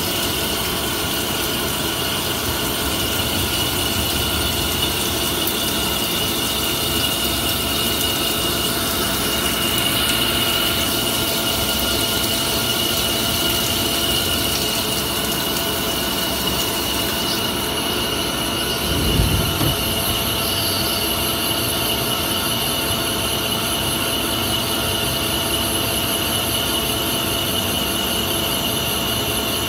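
CNC lathe deep-hole drilling with a through-coolant drill: the spindle turning, coolant spraying over the work and a steady high whine. A little past halfway the high hiss changes and a brief low thump is heard.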